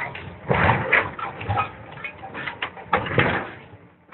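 Steel hull plating of an old barge being cut and torn by an excavator's hydraulic demolition shear: irregular crunches and short metallic squeals, loudest about half a second in and again about three seconds in.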